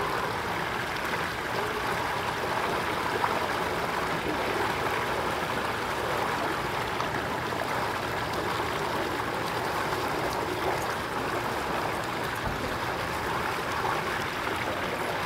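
Steady rush of flowing water, an even hiss with no breaks or distinct splashes.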